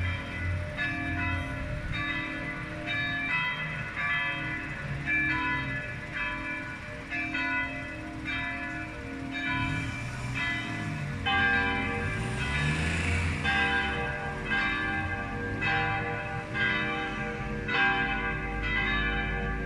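A peal of Catholic church tower bells: several swinging bells striking in an overlapping, uneven rhythm at about two strokes a second, each stroke ringing on. About eleven seconds in, another bell's deeper tones join the peal.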